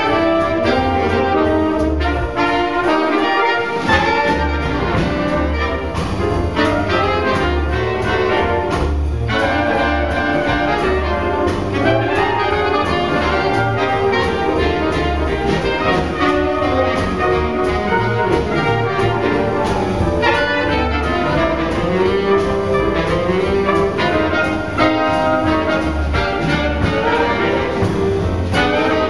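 Swing-band octet playing a jazz ensemble passage, trumpet and trombone horns over saxophones, piano, drums and a walking upright bass. The bass drops out briefly about three seconds in.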